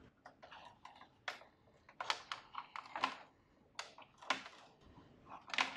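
5 mm plastic microduct tubes being handled and pushed into the rubber drop seals of a plastic fibre enclosure, giving a scatter of light, irregular clicks and taps.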